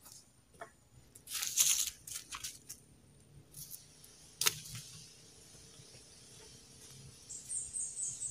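A fibrous strip of plant material being torn and split by hand and machete for lashing: loud rasping tears a second or so in, a sharp knock halfway through, then a quick run of about five high squeaks near the end.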